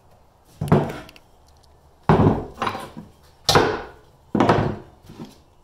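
Ball-peen hammer blows on steel, knocking an old axle bearing out of its pocket: four hard strikes roughly a second apart, with a couple of lighter taps between, each ringing briefly.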